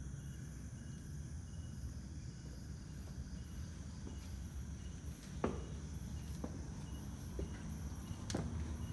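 Crickets and other night insects chirping steadily in high, evenly pulsing trills. A few sharp thumps come in the second half.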